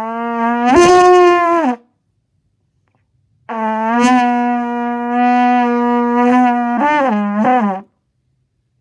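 Trumpet blown in two long blasts as an imitation of an elephant trumpeting. The first jumps up to a higher note about a second in and then stops. The second holds one low note and wavers in pitch near the end.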